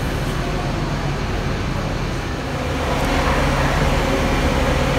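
Steady vehicle engine rumble with traffic noise. A little past halfway the rumble changes and grows slightly louder, with a steady hum underneath.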